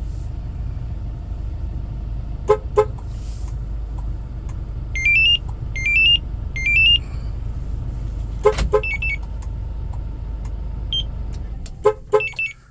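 Kia Bongo 1-ton truck's engine idling under remote start, with pairs of short horn chirps about two and a half and eight and a half seconds in and again near the end. Between them come short rising three-note electronic beeps from the two-way remote starter's fob. The engine stops near the end.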